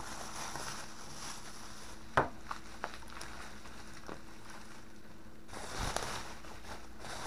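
Plastic bubble wrap rustling and crinkling as it is unwound by hand from a wooden rifle stock, with one sharp click about two seconds in and a few smaller clicks after it. The crinkling grows louder near the end.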